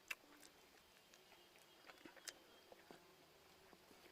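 Near silence, broken by a few faint, short clicks of eating and chewing.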